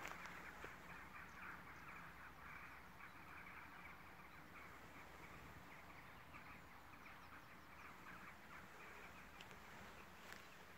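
Near silence, with a faint, continuous chorus of distant birds calling.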